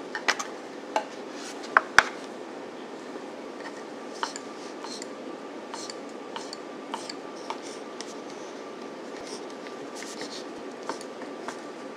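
Kitchen knife cutting cheddar cheese into small cubes on a wooden cutting board: light, irregular taps of the blade on the wood. There are a few louder knocks in the first two seconds.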